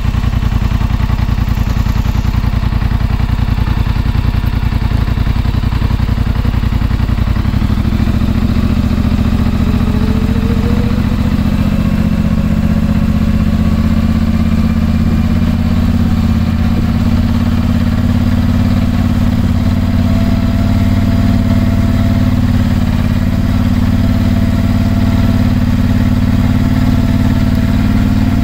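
ATV engine running close by, picking up about seven seconds in with a whine that rises over a few seconds, then running steadily as the machine drives along.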